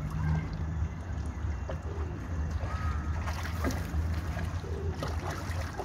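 A low steady rumble with a few small water splashes where turtles and fish crowd the surface, and faint chirps.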